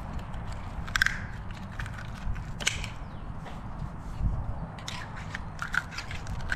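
Oyster knife prying and scraping at raw oyster shells, making irregular sharp clicks and short crunches of shell as the oysters are shucked.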